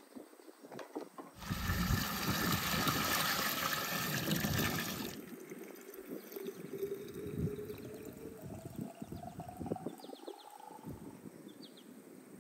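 Water running from a samovar's tap into a glass bottle: a loud splashing stream for a few seconds, then a quieter fill with a tone that rises steadily in pitch as the bottle fills.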